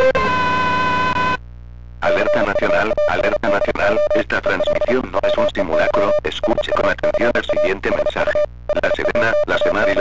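Harsh, distorted emergency-alert-style sound effect. It opens with a buzzy steady tone, drops to a low hum for about half a second, then from about two seconds in turns into a loud, choppy jumble of noise over one steady droning tone. The jumble cuts out briefly near the end.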